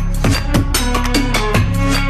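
Background electronic music with a steady drum beat and deep bass.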